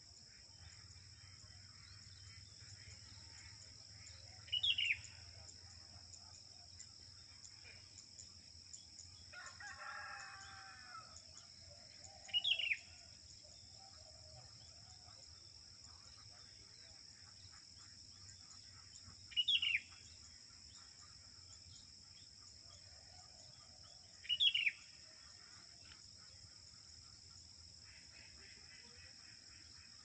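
Sooty-headed bulbul (kutilang) giving four short, sharp calls that sweep downward in pitch, several seconds apart: a female calling to a male. A fainter, lower crow, like a rooster's, comes once near the middle, over a steady high drone of insects.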